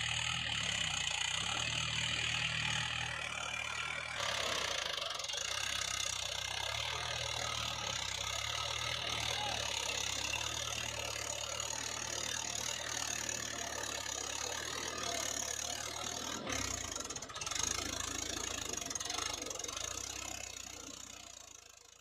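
Steady tractor-engine running sound with a low hum, fading out near the end.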